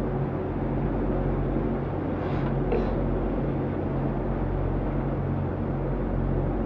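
Motor yacht's inboard engine running steadily at slow speed, a low drone with water and wind noise. Two brief higher sounds come about two and a half seconds in.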